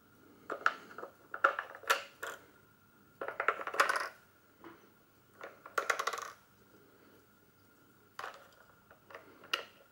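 AA batteries clinking and rattling as they are slid into the metal battery compartment in the grip of a Bauer C 1 M Super 8 camera, with the compartment cap then handled. The sound comes in several short bursts of clicks with pauses between.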